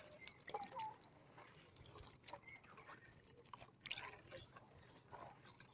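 Unripe green lychees being washed by hand in a steel bowl of water: faint splashing with irregular soft clicks as the fruits knock together and against the bowl.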